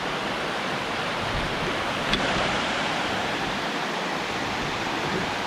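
Steady rushing of a mountain creek spilling over a small waterfall.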